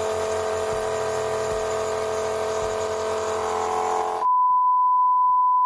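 Nebulizer air compressor running with a steady hum and hiss. About four seconds in it cuts off abruptly and a loud, steady, single-pitched electronic beep tone takes over.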